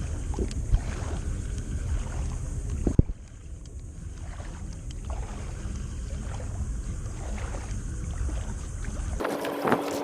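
Water moving and sloshing under a rumble of wind on the microphone, with an abrupt drop in level about three seconds in. Just before the end the rumble cuts off and a steady tone begins.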